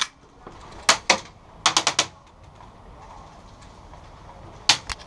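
Airsoft gun shots as sharp cracks: one at the start, two about a second in, a quick burst of four just before two seconds, and one more near the end.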